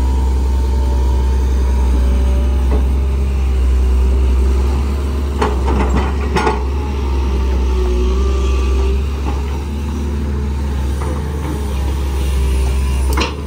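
Sunward SWE210 hydraulic excavator working at full power: the diesel engine runs under load and the hydraulic pump is howling, its whine wavering as the boom digs, swings and dumps. A few sharp knocks about halfway through as the bucketful of soil drops into the dump truck bed.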